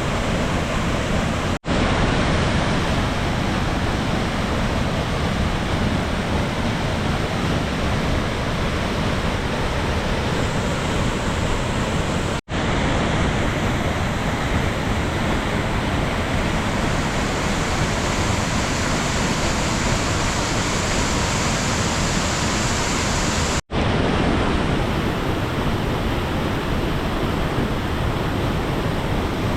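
Large waterfall in heavy flow after days of rain: a loud, steady rush of falling water. It is broken three times by a momentary gap where the recording cuts.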